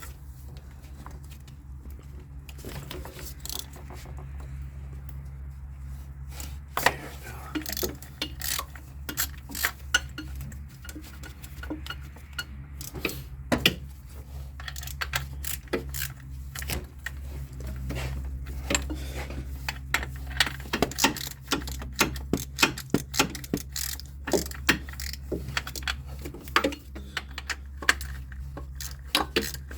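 Metal hand tools and sockets clinking and clicking against the pulley hardware, with many sharp clicks that come thicker in the second half, while the idler pulley nut is worked loose.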